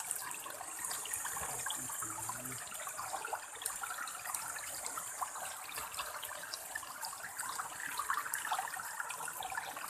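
River water running over shallow ground, a steady rush scattered with many small sharp splashes.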